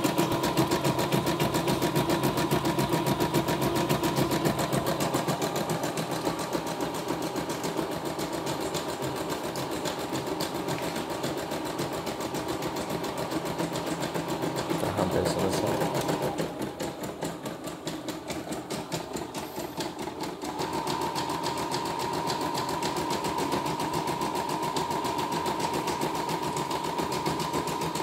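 CNY computerized embroidery machine stitching a pattern in its hoop: rapid, even needle strokes over a steady motor hum, in a test run after servicing. The sound drops quieter for a few seconds a little past the middle, then picks up again.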